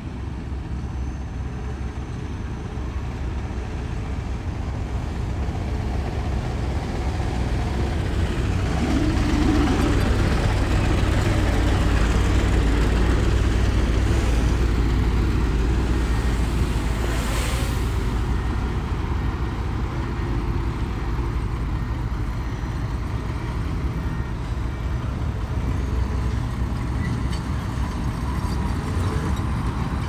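Heavy diesel earthmoving machinery running, a bulldozer or dump truck engine with a steady low rumble that grows louder about a third of the way in. A brief hiss comes about halfway through.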